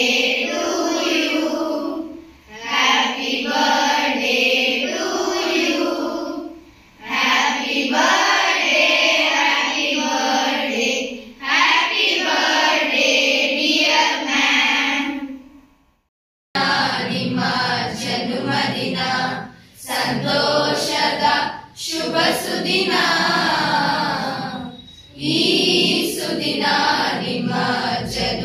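A group of schoolchildren singing together in chorus, in phrases of a few seconds with short breaks between them. About halfway through, the sound cuts off abruptly and another group of children's voices takes up the song.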